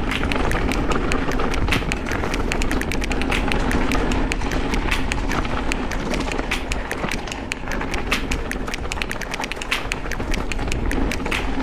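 Mountain bike rolling fast down a dirt trail: tyres on rough ground and the bike rattling, a dense, irregular patter of clicks and knocks over a steady rushing noise.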